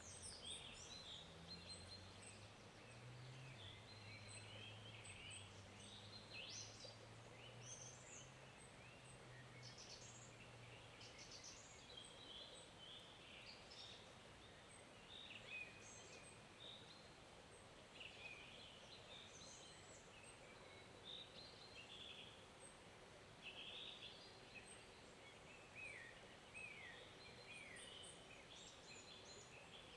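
Faint forest stream ambience: a soft steady wash of flowing water with small birds chirping and trilling throughout. A low steady hum sits underneath for about the first twelve seconds, then fades out.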